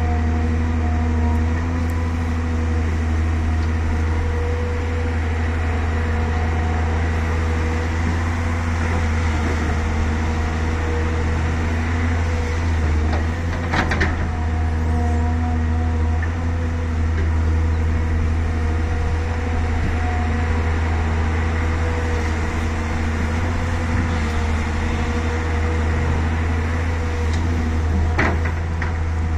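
Volvo EC380DL excavator's diesel engine running with a steady low drone, with a sharp knock about halfway through and another near the end.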